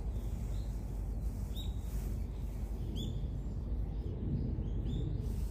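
Three short bird chirps, spaced about a second and a half apart, over a steady low outdoor background rumble.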